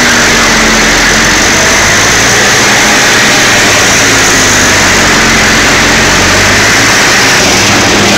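Elho Rotor Cutter 1500 bale shredder running steadily and loudly as it chops a round bale of silage, with a low machine hum under a dense, even noise of material being shredded.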